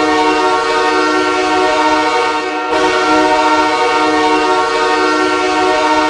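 Los Angeles Kings goal horn: two Nathan K3LA three-chime train air horns sounding a loud, steady chord. The blast breaks off briefly and sounds again nearly three seconds in.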